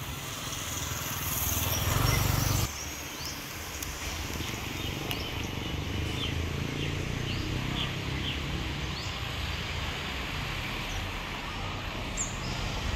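Outdoor street ambience: a low steady rumble of traffic, with a louder rush of noise that swells for about two seconds near the start and cuts off abruptly. Short, high bird chirps are scattered through the rest.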